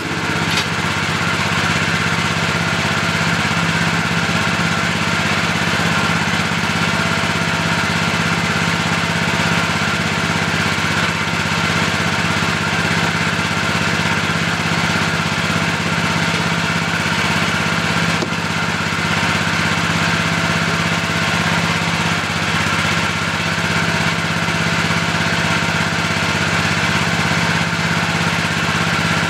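Engine of the machine working the lifting bucket, idling steadily with an even low hum.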